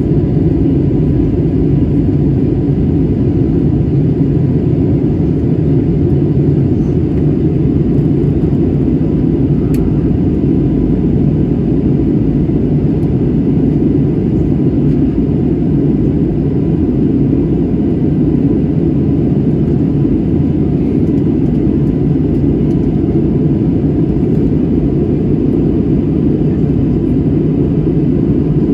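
Cabin noise of an Airbus A320-family jet airliner climbing after takeoff: a loud, steady, low rumble of engines and airflow with a faint steady whine above it.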